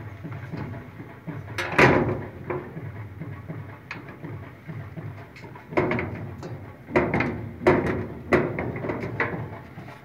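Metal clanks and rattles from a steel gate and its sliding latch being moved: one loud clank about two seconds in, then a run of sharper knocks in the second half.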